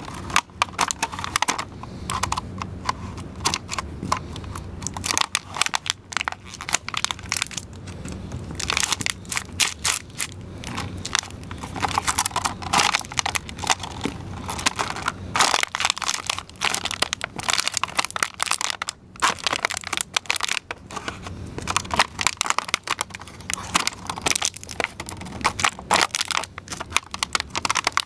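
Banana Republic chukka boots stomping and grinding empty clear plastic shrimp containers against concrete: a continuous run of sharp plastic cracking and crinkling as the thin trays crush and split underfoot.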